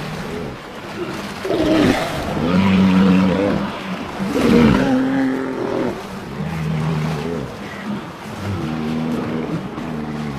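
Walrus calling: a series of low, pitched calls, some held steady for about a second and some gliding up and down.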